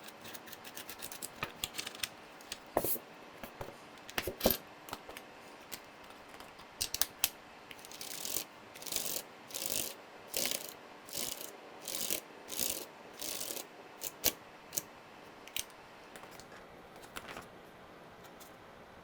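Plastic keycaps clicking and scraping on a mechanical keyboard's switch stems as they are swapped, with scattered sharp clicks and a couple of louder knocks, then a regular run of short scrapes about one every half second.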